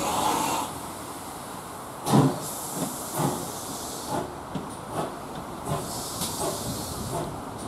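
A steam hiss that drops away under a second in, then the slow exhaust beats of a GWR 0-6-0 pannier tank locomotive, about two a second, as it moves its train slowly along.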